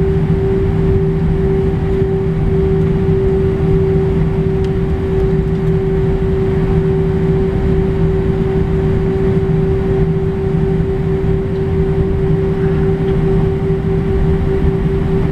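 Airbus A319 cabin sound while taxiing, heard over the wing: the engines at low taxi power give a steady hum with one constant tone over an even low rumble.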